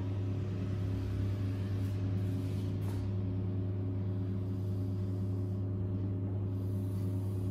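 A steady low hum throughout, with a few faint strokes of chalk on a blackboard.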